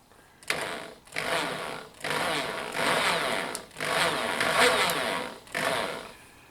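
Pistol drill running in five short bursts, turning the ball screw of a DIY CNC router so the table travels along its linear rails.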